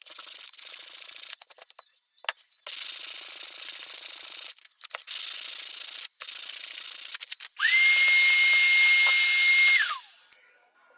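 Small electric power tool working the wooden handle pieces in several short bursts with brief pauses between. In the last, longest burst the motor whines up to speed, runs steadily and spins down.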